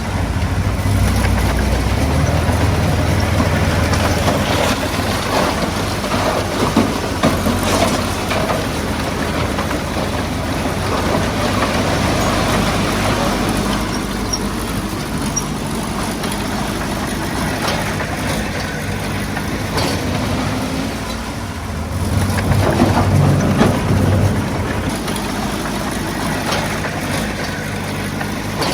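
Heavy diesel engine running steadily under work, rising in strength twice, with scattered knocks and clatter over it, as of stone being pushed and dumped.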